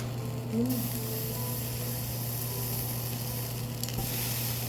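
Meat sizzling on a grill: a steady hiss that swells for a moment about four seconds in, over a low steady hum.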